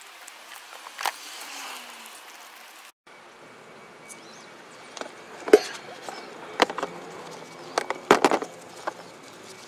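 Several sharp clicks and taps from small metal bicycle parts and tools being handled on a plastic lid. There are a few single clicks, the loudest about halfway through, then a quick cluster of taps near the end, over a low steady hiss.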